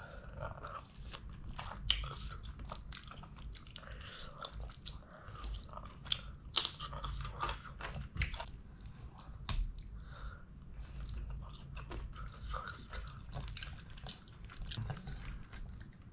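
Close-miked eating sounds of a man chewing chicken curry and rice: steady wet chewing and lip smacks, with a few sharper clicks standing out.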